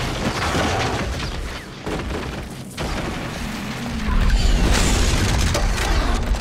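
Dramatic trailer music with deep booms, its low rumble growing sharply louder about four seconds in.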